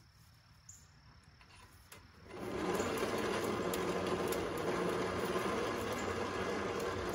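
Badland 2000 lb electric winch motor and gear train running steadily, starting abruptly about two seconds in, as its wire cable is paid out.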